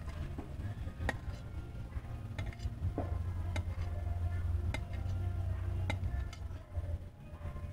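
A cleaver chopping through hotdogs onto a plate, used in place of a chopping board: sharp knocks of the blade against the plate, about one every half second to second, at an uneven pace.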